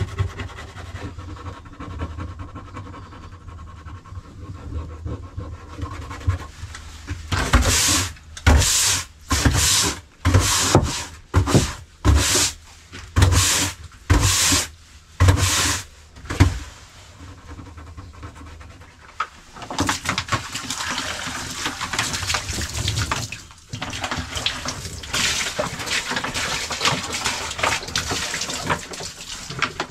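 Stiff-bristled push broom scrubbing wet wooden decking in about ten brisk strokes, roughly one a second, followed by water pouring steadily from a plastic bottle onto the boards.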